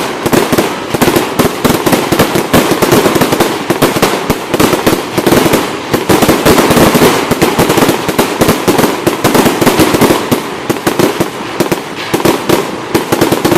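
Fireworks display going off in a dense, continuous barrage of rapid, overlapping loud bangs, many a second.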